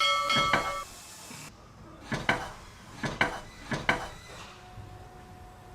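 Workshop clatter: a brief metallic ring right at the start, then three or four sharp knocks, as of tools and wooden parts being handled and set down.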